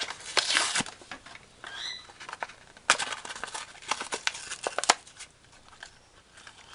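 Hot Wheels blister pack being torn open by hand: the card and clear plastic bubble crackle and tear in two bursts, the second from about three to five seconds in, with a brief squeak of plastic between them.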